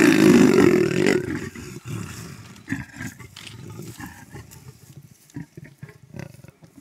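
Leopards growling as a mating ends and the pair separate: a loud, rough growl in the first second, then quieter growls that die away.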